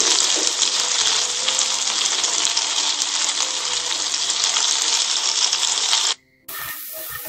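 Minced garlic and shallots sizzling in hot oil in a frying pan, a steady dense hiss. It cuts off abruptly about six seconds in, and after a brief silence the sizzle resumes with light clicks of chopsticks stirring in the pan.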